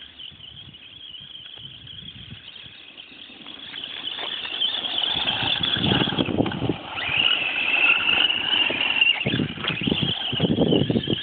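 Radio-controlled model buggy's motor whining at high pitch as it drives on a gravel road, growing louder about four seconds in and changing pitch with the throttle. Rougher low rumbles come about six seconds in and near the end.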